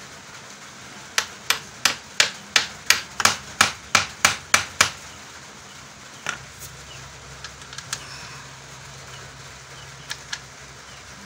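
About a dozen sharp hammer blows, roughly three a second, driving a mounting bolt down through a bench vise's base into a wooden workbench. They are followed by a single knock and a few light metallic clicks.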